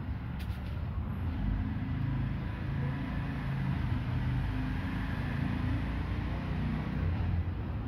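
Steady low rumble with a fainter hiss above it, holding at an even level, with a few faint clicks about half a second in.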